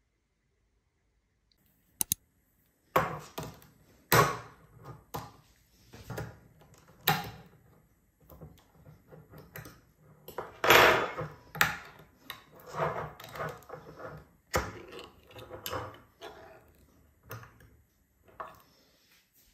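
Irregular metallic clicks, clinks and scrapes of a fork against a ring-pull tin can as its lid is pried up and peeled back, starting about three seconds in.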